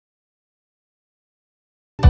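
Silence, then background music with guitar cutting in abruptly at the very end.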